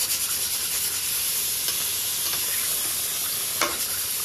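Chicken frying in an onion and ginger-garlic masala in a pan, sizzling steadily as it is stirred, with a few faint knocks from the stirring.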